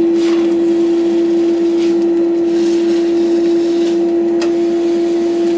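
Red-hot steel held in tongs being quenched in a water tank: a brief hiss and a few metal clinks, over a loud steady hum.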